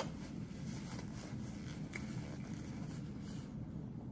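A person chewing a soft birria taco with the mouth closed: faint, wet mouth clicks and smacks over a steady low hum.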